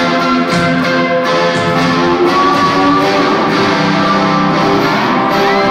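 A live rock band playing, with an electric guitar strummed at the front of the mix and no vocals. It is a loud, steady audience recording.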